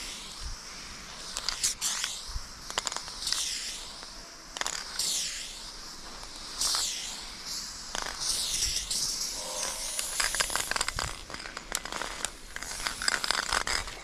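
Aerosol spray-paint can hissing in a series of strokes of about a second each, with short pauses between them, as paint is sprayed onto a concrete wall. Short clicks and crackles come between the strokes, thickest near the end.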